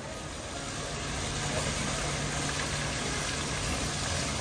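Fountain jets spraying and splashing into a pool, a steady rush of water that fades up over the first second, with a steady low hum underneath.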